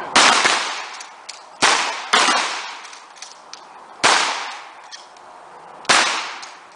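Shotguns fired along a firing line: five loud shots, two close together near the start, then roughly one every two seconds, each followed by a decaying echo.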